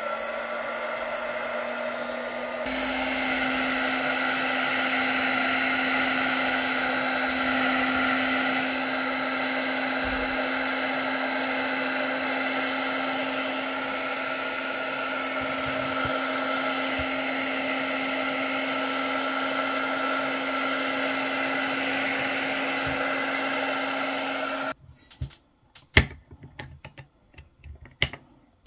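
Handheld hot-air heat gun blowing steadily, with its motor hum stepping up a little in pitch and loudness about three seconds in. It is warming the phone's display to soften the screen adhesive. It switches off abruptly about four seconds before the end, followed by a few sharp clicks and knocks.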